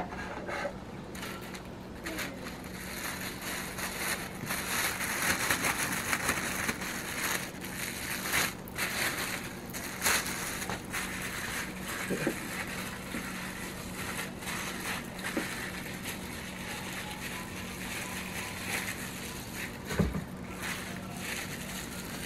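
Thin plastic food-prep glove crinkling and rustling as a gloved hand handles and rubs raw chicken drumsticks, with a few light knocks against the plate. The crinkling is busiest in the first half and fades to a quieter rustle later.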